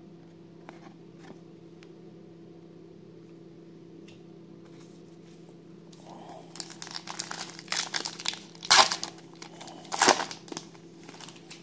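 Foil wrapper of a 2017 Topps Stadium Club baseball card pack crinkling and being torn open, starting about six seconds in, with the two loudest rips near the end. Before that only a faint low hum.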